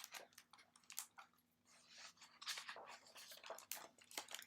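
Faint rustling and crinkling of paper as the pages of a picture book are handled and turned, a scatter of small irregular clicks that grows busier in the second half.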